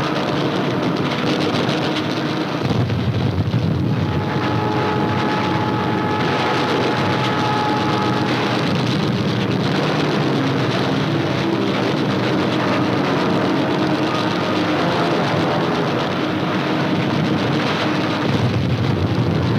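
Aircraft engines droning under a steady, noisy rumble, with a few held whining tones between about four and eight seconds in, on an old newsreel soundtrack.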